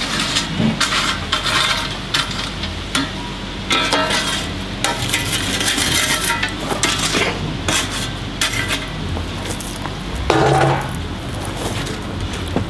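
Irregular scraping and clinking of metal tools working the coals and grate of an open-fire charcoal grill.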